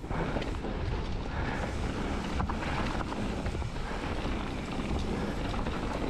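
Mountain bike riding fast down a loose gravel trail: a steady rush of tyre noise on the gravel and wind buffeting the microphone, with the bike knocking and rattling over bumps now and then.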